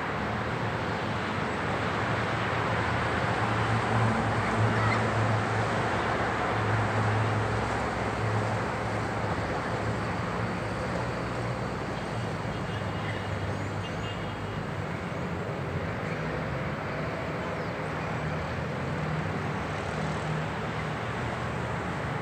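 City road traffic: cars passing with steady tyre noise and engine hum, swelling louder a few seconds in as vehicles go by, then easing off.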